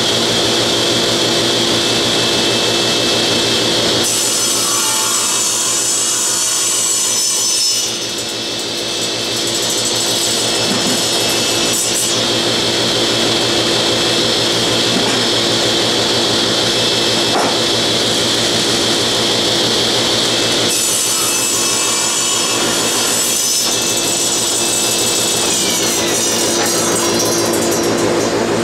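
Table saw running and cutting the end off a thick board of sipo mahogany, likely in two passes. The sound changes character several times as the blade goes into and comes out of the wood.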